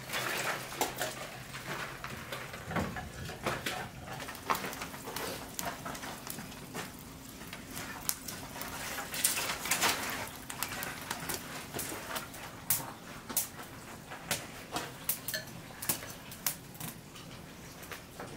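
Irregular clatter and sharp knocks of split firewood and firebricks being handled at the side stoking port of a wood-fired kiln during stoking, with a faint steady hum underneath.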